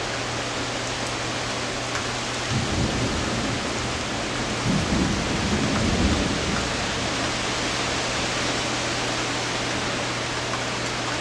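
Rain hissing steadily, with low thunder rumbling about two and a half seconds in and again, louder, from around five to six and a half seconds.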